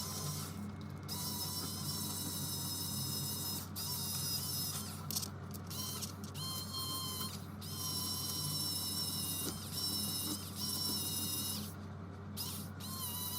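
A machine running with a steady hum, its high whine dropping out briefly several times.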